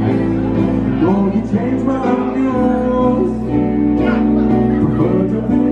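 Live band music: a song with singing and electric guitar over a steady bass line.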